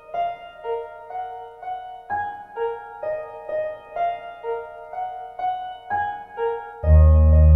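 Opening theme music: a light keyboard melody of plucked-sounding notes, about two a second, repeating a short figure. Near the end a loud, held low bass chord comes in under it.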